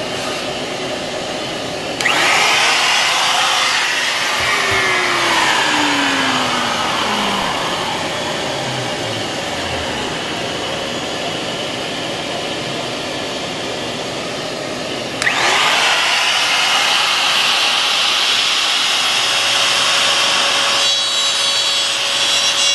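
Shop vacuum running steadily, with a DeWalt compact router switched on over it about two seconds in and again around fifteen seconds in; the router's motor sweeps in pitch as it changes speed.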